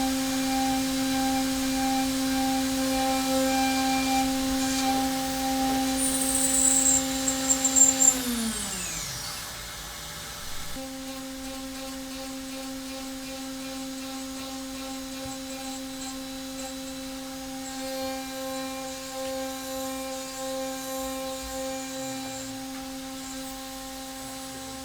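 Hermle C400 machining centre's spindle running at a steady speed with a constant whine. A few sharp high squeals come about six to eight seconds in, then the spindle spins down with a falling whine. The steady spindle tone is back from about eleven seconds.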